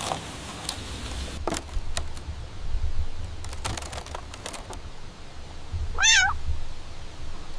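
A cat meowing once, briefly, about six seconds in, with a wavering pitch. Scattered soft knocks and a low rumble lie underneath.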